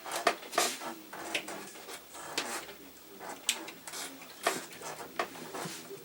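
Cable connector being pushed into its socket on a computer power supply, with irregular plastic clicks and knocks from handling the connector and wires.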